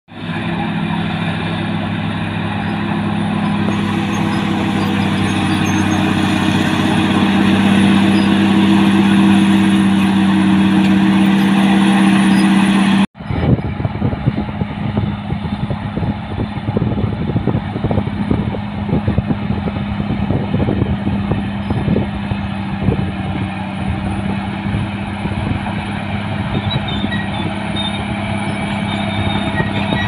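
Caterpillar D6R bulldozer's diesel engine running steadily under load as it pushes soil, with a strong low tone. After a break about 13 s in, the engine carries on beneath frequent irregular clanks and clatter, typical of the steel tracks and blade working the ground.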